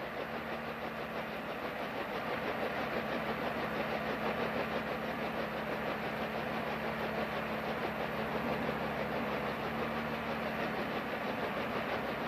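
Bell H-13 Sioux (Bell 47) helicopter's piston engine and main rotor running with a steady drone, heard close to the open bubble cockpit; the noise grows a little over the first couple of seconds and then holds even.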